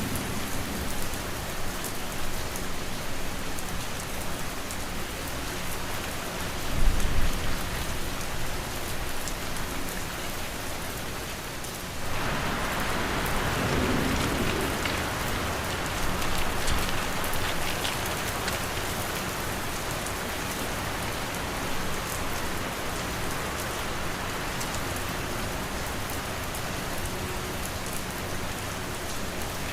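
Steady rain falling, an even hiss of drops, with a brief low rumble about seven seconds in. About twelve seconds in, the rain turns suddenly brighter and heavier and stays that way.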